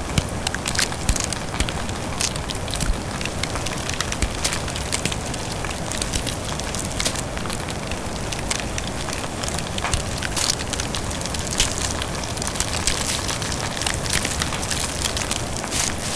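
Bonfire burning, recorded close up: a steady low rush of flames with frequent sharp, irregular crackles and pops.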